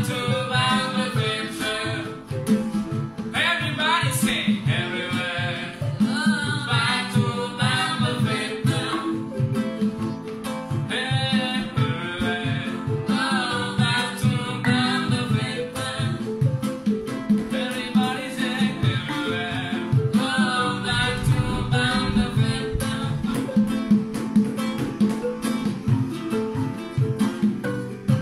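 A song: a solo voice singing wavering, ornamented phrases a few seconds long over a plucked guitar accompaniment with a steady beat.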